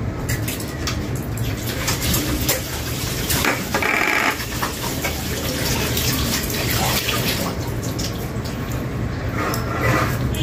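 Steady rush of running water, with a few light clicks.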